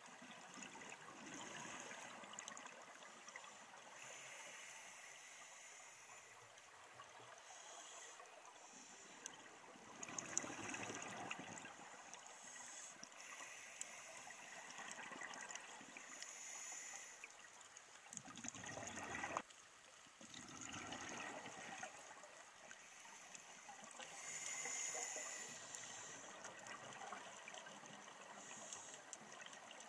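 Underwater sound of scuba divers breathing through their regulators: rushes of exhaled bubbles every few seconds over a steady hiss, one cutting off sharply about two-thirds of the way through.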